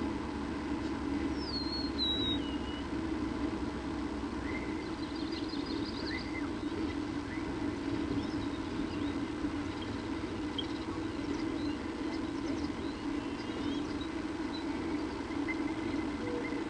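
Steady low hum, with a few faint bird chirps over it and a short falling whistle about one and a half seconds in.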